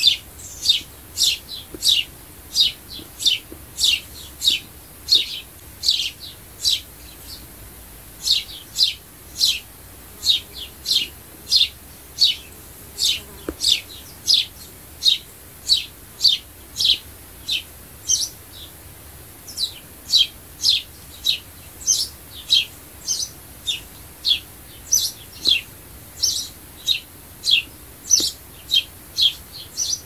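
Sparrow chirping: a long series of short, sharp chirps, each falling quickly in pitch, about two a second, with two brief pauses.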